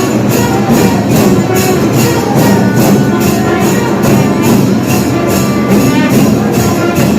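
Music with a steady beat, marked by a bright high stroke about two and a half times a second.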